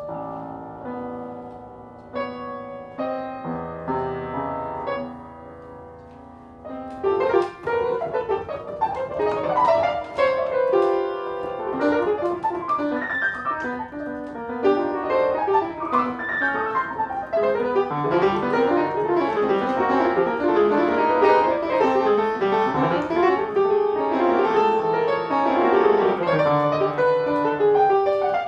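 Solo piano playing: a few slow, held chords at first, then, about seven seconds in, a louder, dense flurry of fast notes and runs across the keyboard.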